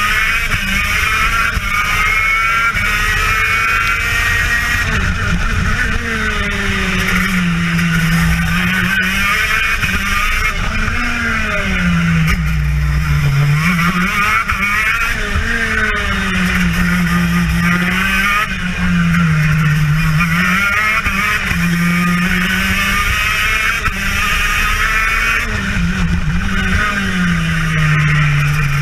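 TM KZ10B 125cc two-stroke kart engine running at race pace, its pitch dropping as the driver lifts and brakes into each corner and climbing again under acceleration on the exit, over and over.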